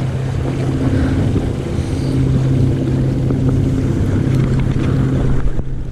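Motorboat engine running at a steady pitch: a low, even hum over wind and water noise.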